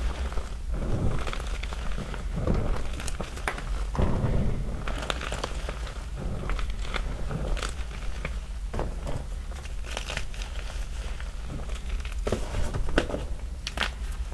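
Small chunks of gym chalk being crushed in loose chalk powder: soft crunching with many small, irregular snaps.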